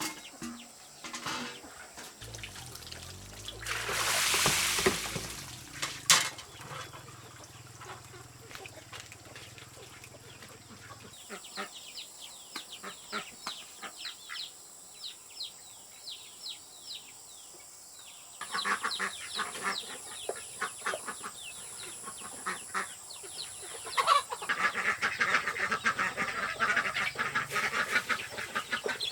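Domestic fowl calling in a run of short repeated calls, busier and louder near the end, with a brief rushing noise and a sharp knock early on.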